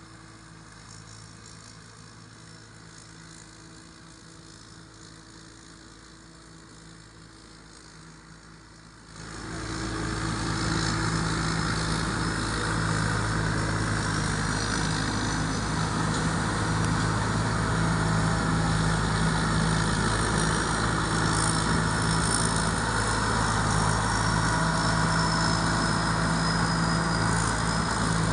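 Diesel engine of a Thai Seng rice combine harvester, a refitted Hino J08C, running steadily. About nine seconds in it suddenly becomes much louder and stays loud, with a faint high whine above the engine note.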